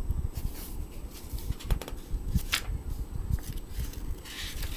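Paperback picture book being handled and a page turned: light taps and clicks, then a paper rustle about four seconds in.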